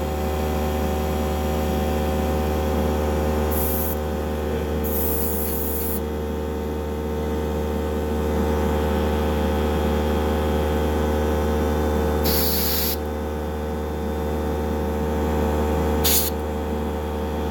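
Airbrush spraying paint in four short hissing bursts, the second lasting about a second, over the steady hum of a running motor.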